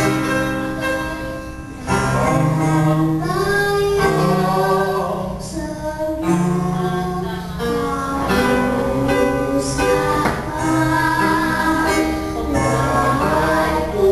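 A young girl singing a solo melody into a microphone, accompanied by an electronic keyboard holding low chords underneath.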